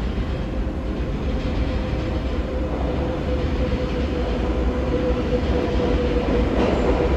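New York City Subway train running through a station: a steady low rumble with a humming tone that grows stronger after about three seconds.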